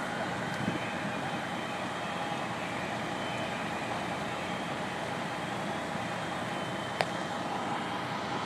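Steady running noise from the fire engine working its aerial ladder, with a single sharp click about seven seconds in.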